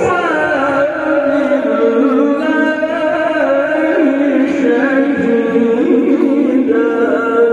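A man's voice in Quran recitation (tilawah), singing one long melodic phrase of held, wavering notes through a hand microphone and loudspeakers.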